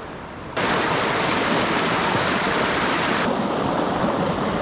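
Shallow stream rushing over rocks, a loud, even rush of water that cuts in suddenly about half a second in, after a quieter steady hiss.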